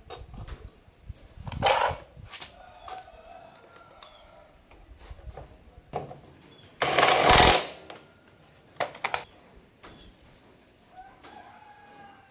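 Cordless impact wrench run in one burst of under a second on the axle nut of an electric bike's rear hub-motor wheel, about seven seconds in. Shorter sharp tool noises come near two and nine seconds.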